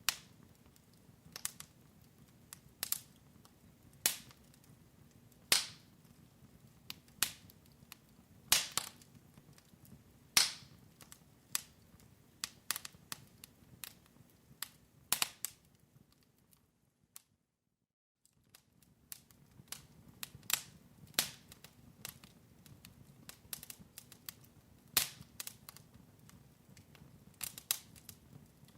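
Wood fire in a fireplace crackling, with irregular sharp pops and snaps over a low hiss. The sound drops out for about two seconds midway, then the crackling resumes.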